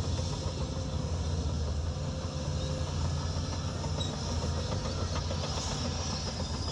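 Heavy diesel earthmoving machine, most likely a crawler bulldozer, running steadily with a low engine drone and a continuous metallic clatter from its steel tracks.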